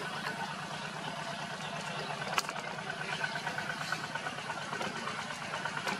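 An engine idling steadily, with one sharp click about two and a half seconds in.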